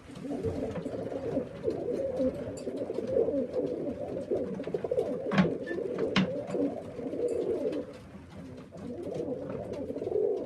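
Several pigeons cooing together without a break in a small loft, with two sharp clicks about halfway through.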